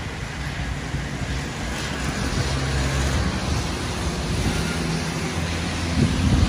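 Road traffic on wet tarmac: cars passing with a steady hiss of tyres on the wet road and a low engine hum that swells a couple of seconds in and again near the end.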